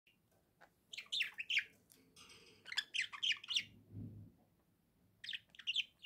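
Budgerigars chirping in three quick bursts of rapid, high chirps: about a second in, around three seconds in, and near the end.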